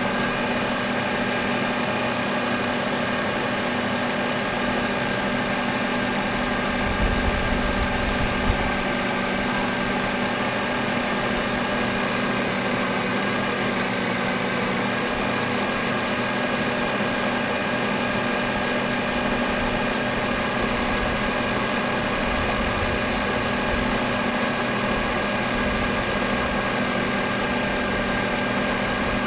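Steady whine of an RC race boat's motor heard from the boat's deck camera, with a few low thumps about seven to eight and a half seconds in.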